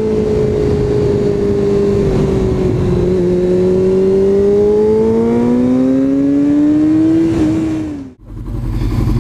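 Sport motorcycle engine running under load with wind rush at the helmet: steady for about three seconds, then its pitch climbs as it accelerates, dips slightly and cuts off suddenly about eight seconds in. A lower, steady engine idle follows near the end.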